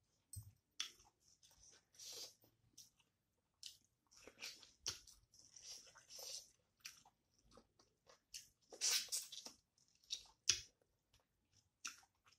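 Close-miked chewing and mouth noises of a person eating rice and bony local chicken curry by hand: irregular wet smacks and bites, the loudest cluster about nine seconds in.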